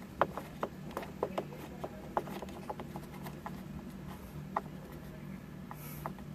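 Screwdriver driving the bottom-left mounting screw of a Honda Accord instrument cluster, a run of small irregular clicks and taps that thins out after the first few seconds, over a steady low hum.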